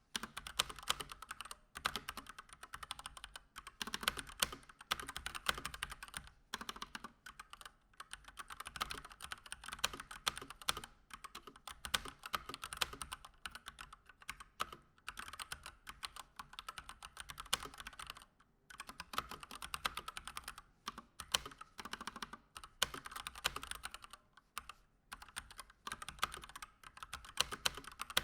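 Keychron C1 mechanical keyboard with stock Gateron Red linear switches being typed on continuously: a fast run of key clacks with a couple of brief pauses.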